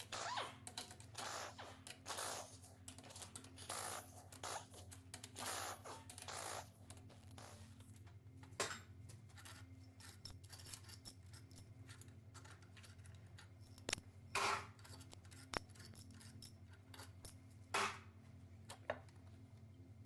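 Metal engine parts being handled and worked on by hand: a run of short scraping sounds, then a few sharp isolated clicks, over a steady low hum.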